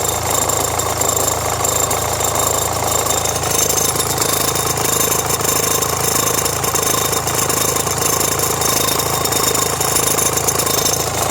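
Renault Mégane 1.5 dCi four-cylinder diesel engine idling steadily with a rattle from the front of the engine. The rattle comes on under electrical load and persists after a new belt and tensioner, which the owner puts down to the alternator or the air-conditioning compressor.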